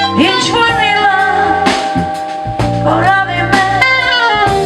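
Live band playing an Armenian pop ballad: a melodic passage with gliding notes over a steady bass line, between sung lines.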